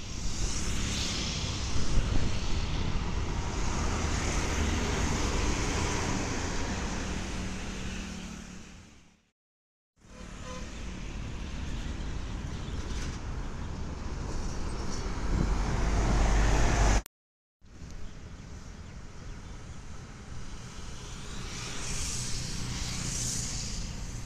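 Roadside traffic: buses and motorcycles passing on a city road, engine noise rising and falling as they go by. The sound is three separate recordings joined, with two short silent gaps between them; in the middle one a low engine rumble swells as a heavy vehicle draws close, then cuts off abruptly.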